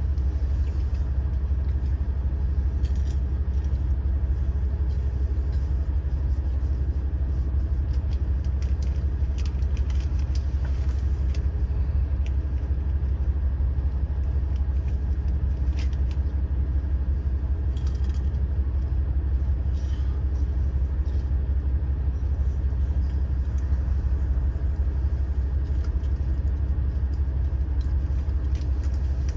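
Steady low rumble inside the cabin of the Yufuin no Mori diesel train, with a few faint clicks.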